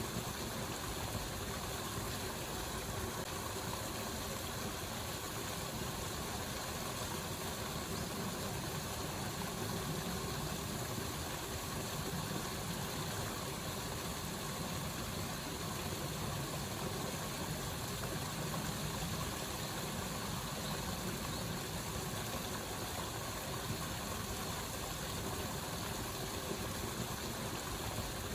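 Steady rush of falling water from a waterfall, an even noise without breaks or separate splashes.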